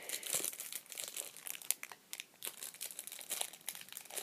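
Plastic wrapper of a trading-card pack crinkling as it is worked open by hand, in irregular crackles with a short lull about two seconds in.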